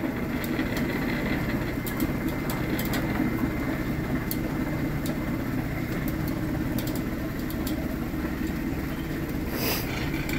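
Boat lift motor running with a steady hum as it lowers the boat on the lift, with scattered faint ticks.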